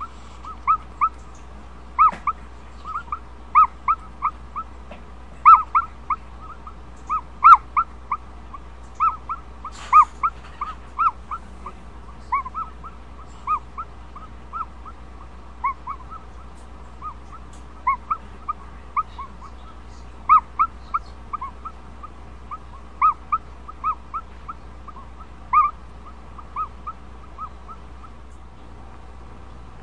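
Ostrich chick calling from inside its pipped egg: short peeps at an even pitch, often in pairs, about two a second. It is the calling of a chick partway through hatching.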